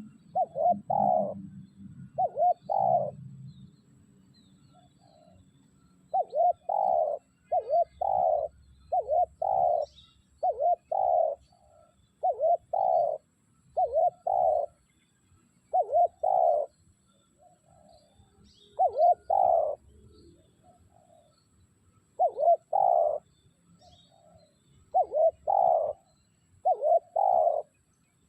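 Spotted dove cooing: loud, low two-part coos repeated every second or two, with a few longer pauses between phrases.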